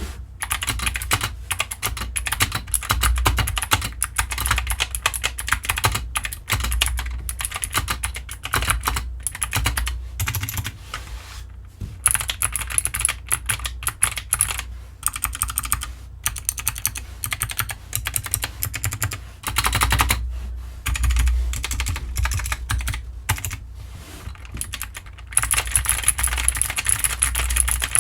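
Fast typing on a DK61 60% mechanical keyboard with clicky blue switches: a dense run of sharp key clicks, broken by a few short pauses.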